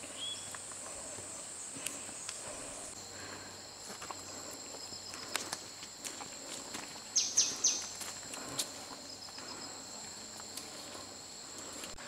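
Insects droning steadily at high pitch in tropical forest, a second, lower steady drone joining about three seconds in, over scattered footsteps on a dirt track. Three short, sharp high chirps stand out about seven seconds in.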